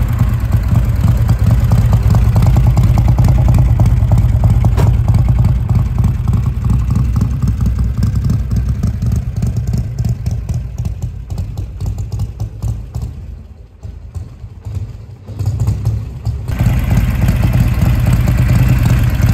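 1957 Harley-Davidson Panhead's overhead-valve V-twin engine running with a deep, steady throb. It fades as the motorcycle rides away and is faint around fourteen seconds in, then returns suddenly at full loudness and runs steadily up close.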